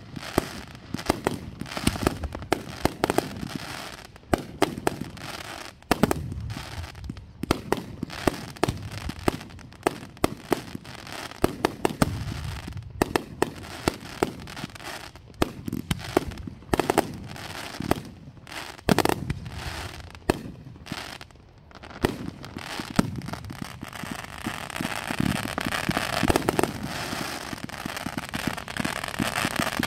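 Fireworks display: a rapid, irregular run of aerial shell bursts and sharp reports with crackle. About three-quarters of the way through, the steady rushing hiss of ground fountains spraying sparks comes in, with reports still popping over it.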